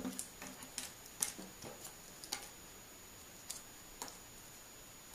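Small cardboard tiles being gathered up by hand: irregular light clicks and taps as they are picked up and knocked together, busiest in the first couple of seconds, then a few scattered taps.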